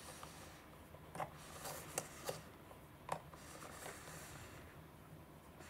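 Hand-turned plastic rollers of a Kururin Macky roll sushi maker turning with a faint rustle, with a handful of light clicks over the first three seconds.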